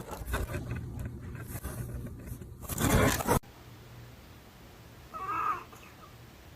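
Irregular scraping and crunching, loudest in a burst about three seconds in, which stops abruptly. About five seconds in, a cat gives one short meow.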